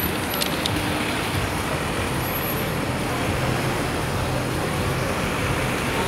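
Steady city road traffic, cars and buses running past on the street, with a low engine hum.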